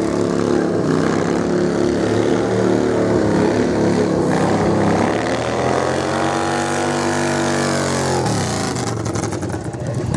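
Motorcycle engine running at steady revs, then revving up and back down in one long arching rise about five seconds in, before dropping away near the end.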